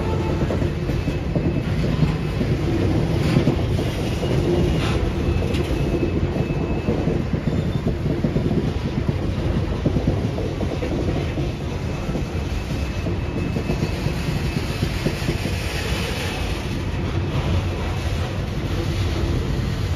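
Railroad cars rolling past in a steady rumble, wheels clicking over rail joints, with a faint high wheel squeal now and then.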